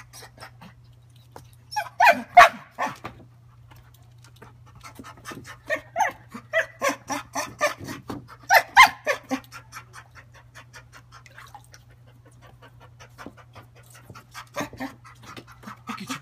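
A dog panting and whining in bursts of quick, rhythmic short sounds, loudest about two seconds in and again around the middle.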